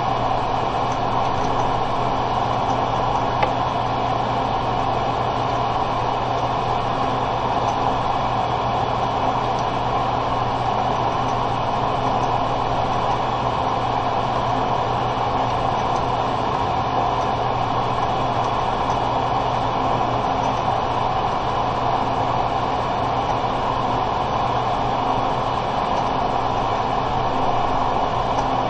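A steady, unchanging noise with a low hum under it, with one brief click about three seconds in.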